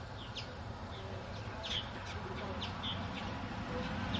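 Small birds chirping in short, sharp calls scattered through, over a low rumble that grows louder toward the end.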